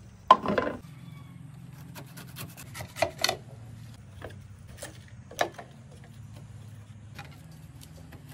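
Knife cutting the skin off a pineapple: short, irregular crunching slices and scrapes, with a louder knock near the start.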